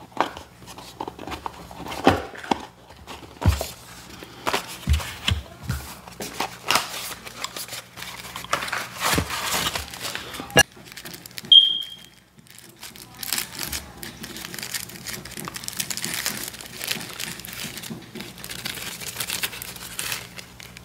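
Packaging being handled: a few knocks as the box and parts are moved on a wooden table, then steady crinkling from about two-thirds of the way in as small items wrapped in white packing material are unwrapped. A brief high squeak comes just before the crinkling starts.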